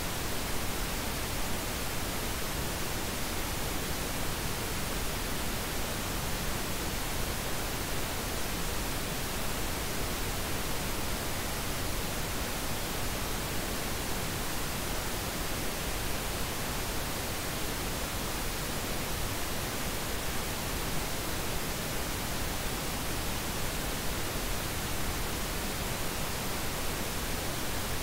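Steady, unchanging hiss of generated pink noise, spread evenly from the lows to the highs.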